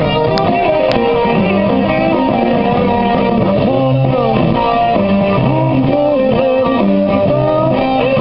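Semi-hollow electric guitar playing a blues lead break, single notes with string bends sliding up and down in pitch.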